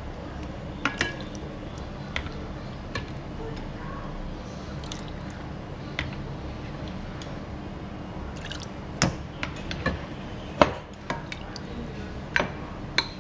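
Chicken stock being ladled into a rice cooker's inner pot over uncooked rice: liquid pouring and dripping, with a ladle knocking against the bowl and pot several times, most often in the second half.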